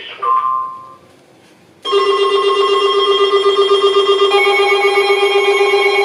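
Several NOAA weather radio receivers sounding their alert alarms together for a Special Marine Warning: after a short electronic beep, a chord of steady electronic tones starts suddenly about two seconds in, and another tone joins about two seconds later.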